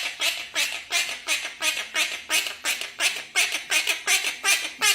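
Parrot squawking in a rapid run of short, harsh repeated calls, about three a second.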